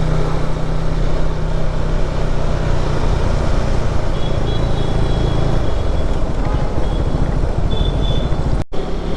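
KTM Duke 390's single-cylinder engine running while riding, under heavy wind rush on the microphone. A steady low engine note fades about halfway through, and the sound cuts out for an instant near the end.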